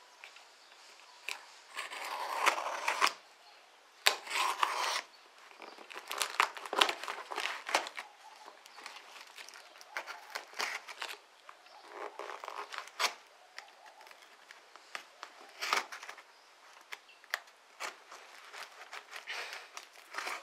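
A blade slitting packing tape and cardboard on a shipping box: irregular scraping and tearing strokes of about a second each, with scattered clicks and rustles of the tape and paper label in between.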